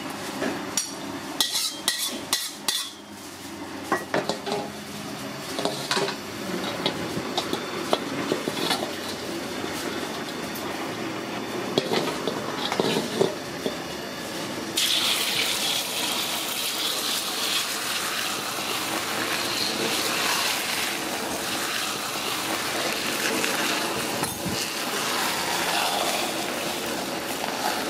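Metal utensil clinking and scraping against a steel wok, with scattered sharp clicks; then, about halfway through, beaten egg poured into hot oil sets off a steady sizzle that continues as the omelette fries.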